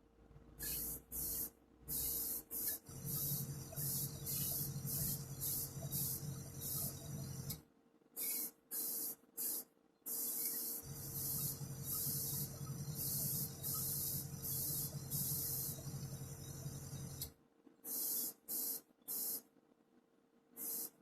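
Airbrush spraying Vallejo acrylic paint in many short bursts of hiss. Underneath runs a low motor hum, plausibly the air compressor, which stops about 7 seconds in, starts again about 11 seconds in, and stops again near the end.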